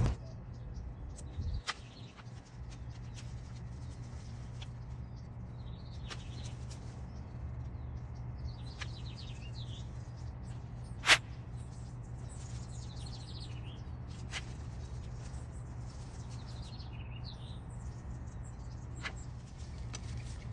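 Long-handled loppers cutting plum branches: a handful of sharp snips spread out, the loudest a single crack about halfway. Faint bird chirps and a steady low hum behind.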